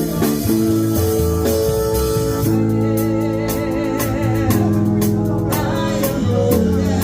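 Gospel song: a voice holding long notes with vibrato over sustained keyboard chords and a steady drum beat.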